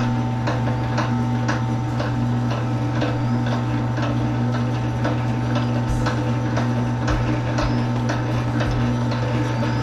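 Wire stripping machine running as a length of insulated wire is fed through it. There is a steady hum with an even click about twice a second.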